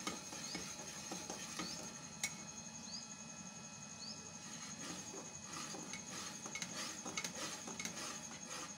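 Metal spoon stirring thin custard in a cooking pot, with small scrapes and clinks against the pot.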